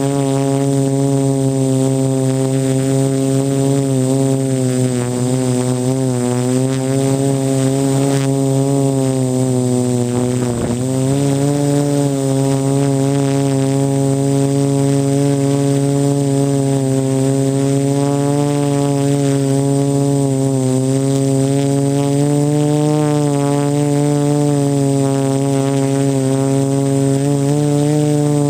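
Quadcopter's electric motors and propellers humming steadily right by the microphone, the pitch wavering slightly as the throttle is adjusted, with a brief dip in pitch about ten seconds in.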